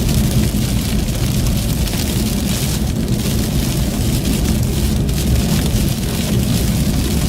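Steady low rumble of a vehicle driving on the highway, with an even hiss over it.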